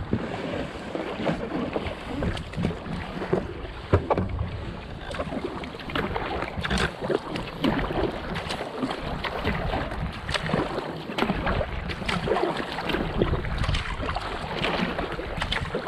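Kayak paddle blades dipping into and pulling through lake water, a run of irregular splashes and drips from steady paddling, over a steady low rumble.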